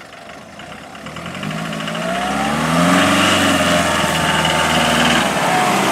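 Ford Troller T4's 3.0 turbo-diesel engine running as the jeep drives closer, growing louder and rising in pitch over the first few seconds as it accelerates, then holding steady.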